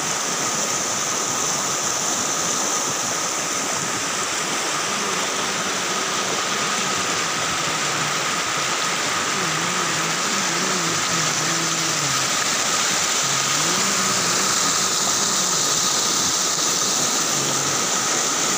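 Fast mountain stream rushing over rocks in a steady, even roar of white water. From about five seconds in, a faint wavering hum rises and falls underneath it.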